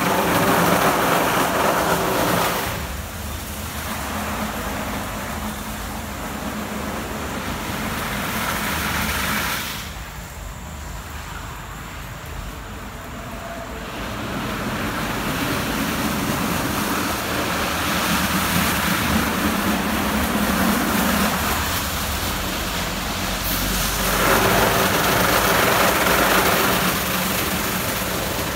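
Christ Genius Vitesse rollover car wash running: rotating brushes swishing against a car with water spray and the gantry's motors. It is loudest in the first couple of seconds and again near the end, as the brushes pass close.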